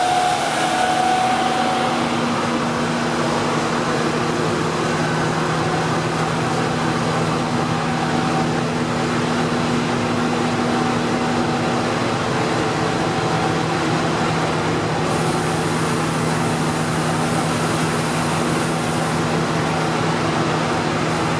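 Inside a Berlin S-Bahn class 480 electric train running along the line with its original GTO traction electronics: steady loud rolling noise with a constant traction-motor hum. A higher whine fades out about two seconds in. The running is unusually loud, which the uploader puts down to fatigued parts around the traction motors.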